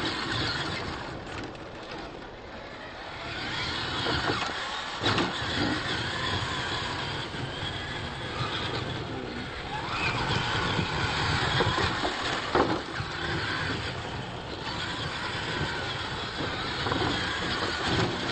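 Radio-controlled monster trucks racing on dirt: motors and drivetrains whining and tyres churning, with a rising whine about ten seconds in and a few sharp knocks as the trucks hit ramps and obstacles.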